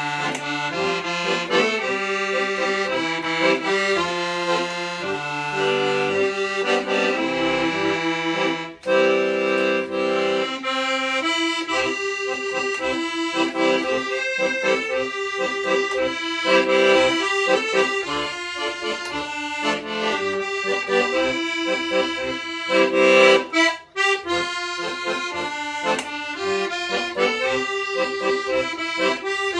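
Accordion playing a tune: a melody over bass notes and chords, pausing twice very briefly.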